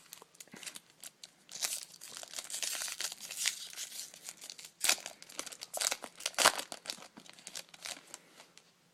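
A foil trading-card pack wrapper crinkling and tearing open, with loud crackles and a few sharp snaps.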